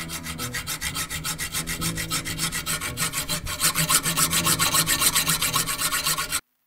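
Hand hacksaw cutting through the leg of a Pletscher bicycle centre stand held in a vise: rapid, even back-and-forth strokes with a rasping sound. It cuts off suddenly near the end.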